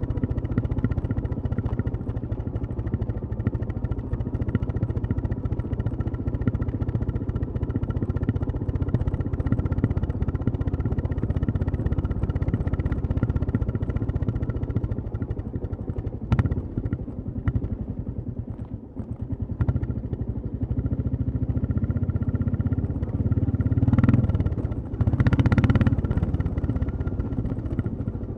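Royal Enfield Classic 350 single-cylinder motorcycle engine and exhaust running under way. The engine eases off about two-thirds of the way through, then opens up louder near the end, with a single sharp click midway.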